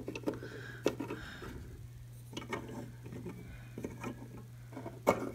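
Light, scattered clicks and taps of Breyer plastic model horses being nudged along a shelf, their hooves and bodies knocking on the surface and against each other, with a sharper knock near the end. A steady low hum sits underneath.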